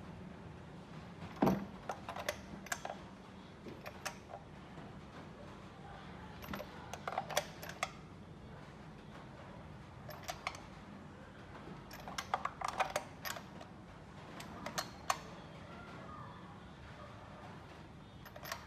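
Scattered sharp metal clicks and clinks of hand tools and parts being handled, some in quick runs, over a steady low hum, as the cleaned spark plugs and ignition parts are refitted.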